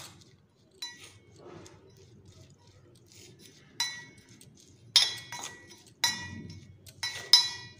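Metal spoon clinking and scraping against a stainless steel bowl while stirring buttered corn kernels: a string of sharp, ringing clinks, sparse at first and coming thicker and louder in the second half.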